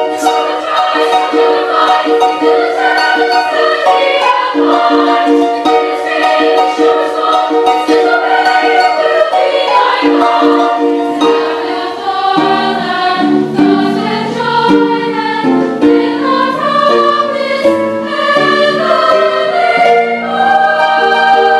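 Girls' choir singing a carol in parts with a Lyon & Healy Style 85 concert grand pedal harp accompanying, lower notes joining about twelve seconds in.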